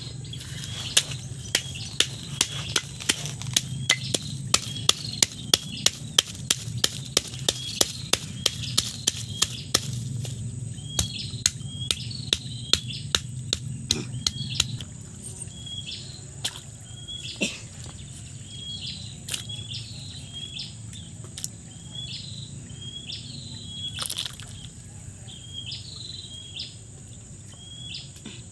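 A stone pestle knocks against a stone mortar as shallots and lemongrass are crushed: sharp, even knocks about three a second, which stop about halfway through. A bird chirps short calls over it, about once a second.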